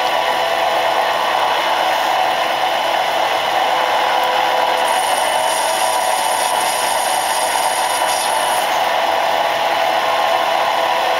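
Small metal lathe running steadily as it turns an aluminium part, its motor and drive giving an even whir. A thin high hiss joins about five seconds in and stops about three and a half seconds later.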